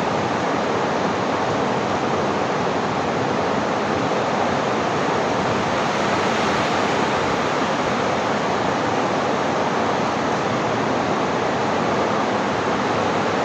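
Swift river rushing over rocks in white-water rapids: a steady, unbroken wash of water noise.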